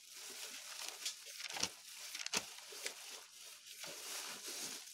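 Faint rustling with a few soft clicks, the clearest about one and a half and two and a half seconds in.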